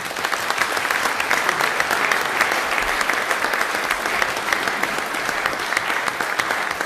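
An audience applauding: many hands clapping at a steady level.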